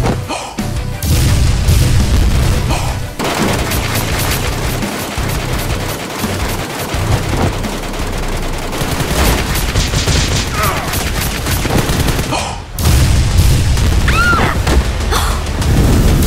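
Rapid bursts of automatic gunfire sound effects, dense and continuous, over background action music, with a brief break about three-quarters of the way through.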